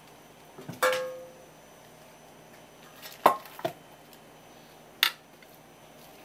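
An enamel tray clanks down on a wooden cutting board about a second in, ringing briefly. Two lighter knocks follow, then a sharp click as the tray is moved and tuna is laid in it.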